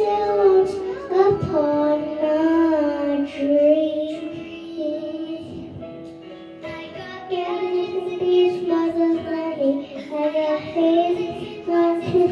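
A young girl singing, holding long notes that bend gently in pitch.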